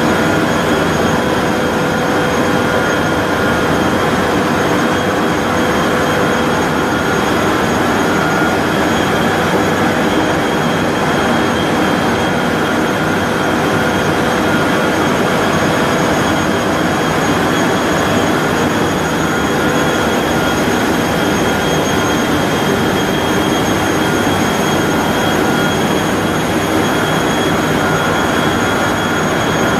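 A 3200 mm copy-paper machine running in production: a loud, steady industrial din of its rolls, drives and dryer section, with several high, steady whines over a constant rumble.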